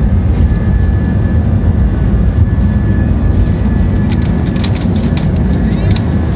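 Airbus A320 heard from inside the cabin on its takeoff roll and liftoff: a loud, steady rumble of the engines at takeoff power and the wheels on the runway, with a thin steady whine over it. A run of sharp clatters comes in about four seconds in, near the moment of liftoff.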